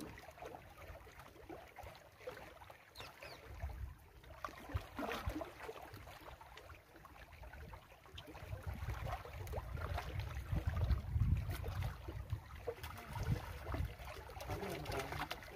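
Lake water lapping and splashing against shoreline rocks, with a low rumble that swells about halfway through.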